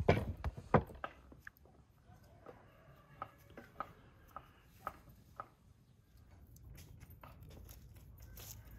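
A wooden cutting board knocks down onto a table twice in the first second, followed by a few faint scattered clicks over a low steady rumble in the background.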